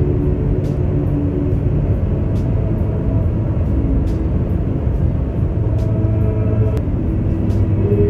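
Road and engine noise inside the cabin of a moving car: a steady low rumble, with faint music playing underneath.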